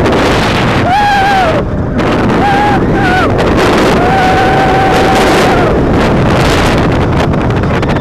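Heavy wind rush on the microphone of a front-row rider on the Xcelerator roller coaster at speed. Riders' screams rise above it: a short one about a second in, two brief ones around three seconds, and a long held scream from about four seconds.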